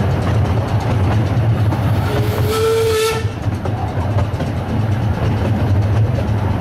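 Miniature steam railway train running, heard from an open passenger carriage: a steady low rumble with wheel clicks over the rail joints. About two seconds in, the locomotive's steam whistle gives one short blast, about a second long.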